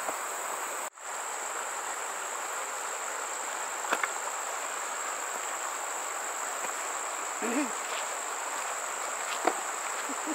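Insects singing in a steady, high-pitched drone, with a few faint clicks. The sound drops out for a moment about a second in.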